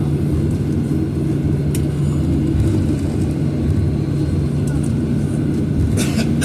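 Cabin noise of a Boeing 737-800 taxiing, heard from inside the cabin: its CFM56 engines at taxi power give a steady low hum and rumble. A brief click about two seconds in and a short rustle near the end.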